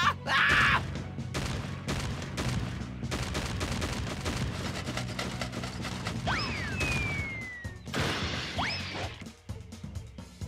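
Cartoon action music under a rapid flurry of fight sound effects: many sharp hits and clattering impacts, a few short rising squeals, and a falling whistle about seven seconds in.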